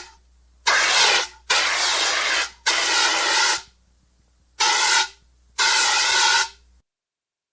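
Fire extinguisher discharging in five short hissing blasts, each half a second to a second long, the first three close together and the last two after a short pause.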